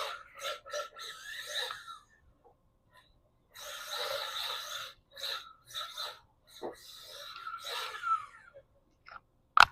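1/12 Losi NASCAR RC car driven in short bursts, its small electric motor whining and its slick tyres sliding on a bare floor as it drifts. There is a sharp click just before the end.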